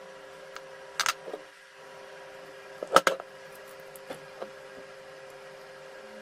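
A few sharp knocks and clicks, as of hard objects being handled and set down. The loudest cluster comes about three seconds in, and they play over a steady low hum.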